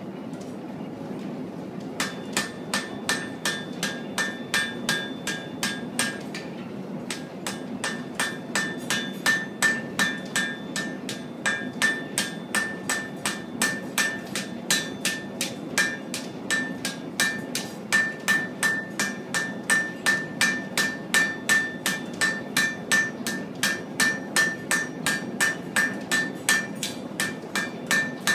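Blacksmith's hand hammer forging hot iron on an anvil: steady blows about three a second, each with a bright metallic ring from the anvil. The blows start about two seconds in and pause briefly about six seconds in. A steady low hum runs underneath.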